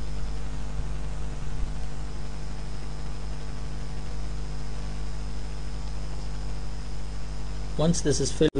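Steady electrical mains hum with a faint hiss underneath, the recording's background noise. A speaking voice starts just before the end.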